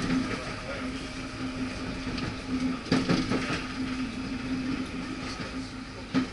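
Paris Métro line 2 train running along the elevated track, heard from inside the carriage: a steady hum over rolling rail noise, with two sharp clunks, one about three seconds in and one near the end.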